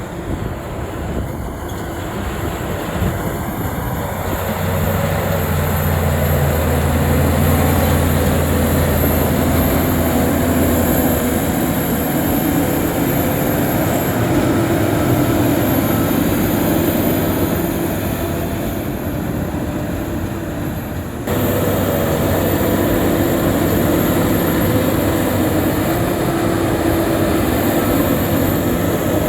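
Heavy diesel earthmoving machinery running: a deep, steady engine drone that builds as the machine comes under load a few seconds in, with an abrupt jump in level about two-thirds of the way through.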